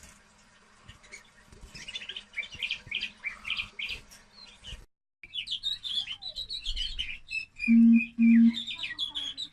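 Small caged finches chirping and twittering in quick high notes. There is a short break partway through, and near the end two loud, low, steady buzzing beeps cut in.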